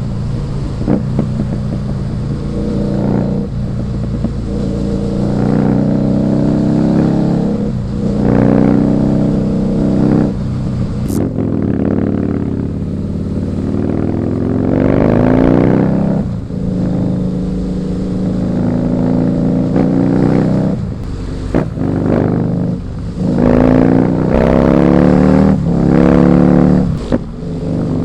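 Husqvarna Nuda 900R's parallel-twin engine pulling hard while riding, its pitch rising again and again and breaking off sharply between rises, as with repeated hard acceleration through the gears.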